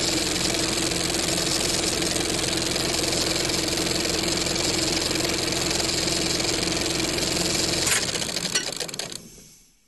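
Old film projector running: a steady mechanical whir and clatter with a low hum. About eight seconds in, the hum stops, a few clicks sound, and the running dies away over about a second and a half.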